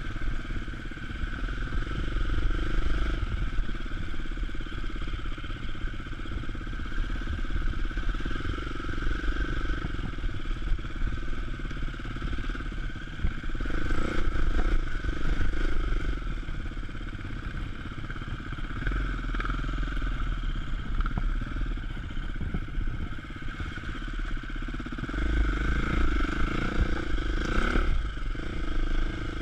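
Enduro motorcycle engine running close up while riding a rough trail, the engine note rising and falling with the throttle, loudest about halfway through and again near the end.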